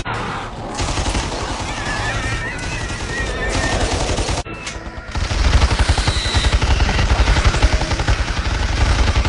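Rapid automatic gunfire from the film's Morita III assault rifles, in sustained bursts over a movie score. The fire breaks off briefly about four and a half seconds in, then returns heavier and denser.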